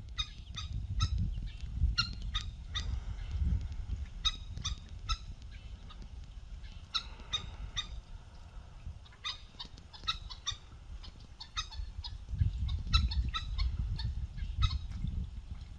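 A bird giving short, harsh call notes over and over at uneven spacing, with a low rumble underneath.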